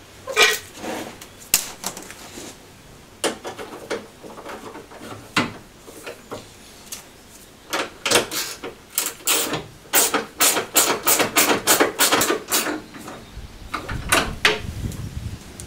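Clicks and knocks of a round headlight unit and its screws being handled and fitted by hand into a car's front panel, with a quick run of sharp clicks in the middle. A low rumble comes in near the end.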